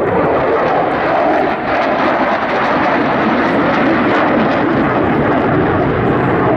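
A Dassault Rafale's twin Snecma M88 turbofans in afterburner during a hard display turn: steady, loud jet noise.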